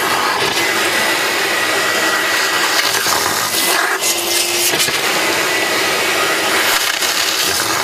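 Steady, loud rushing noise at a fish-cleaning sink: tap water running into the basin while trout are scraped, with a faint steady whine as from a motor-driven machine.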